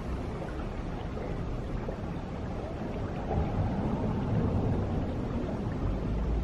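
Steady low rumble of outdoor ambience, wind on the microphone over shallow running water, growing a little louder about halfway through.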